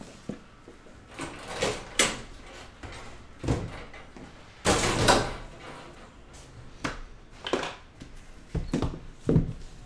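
A string of short knocks, bumps and rustles from boxes and other objects being handled and set down, with a longer, louder bump about five seconds in.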